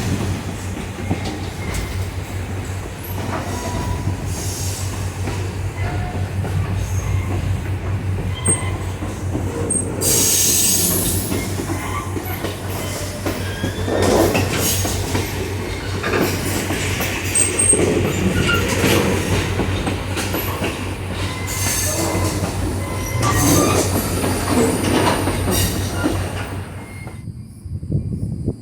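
Passenger train running on the rails with a steady rumble and clicking over rail joints. The wheels squeal high and loud from about ten seconds in. The high sounds drop away near the end.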